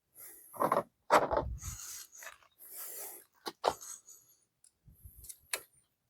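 Hand tool working the bolts of an e-bike's handlebar stem clamp: a few sharp metal clicks and short scraping sounds, irregularly spaced.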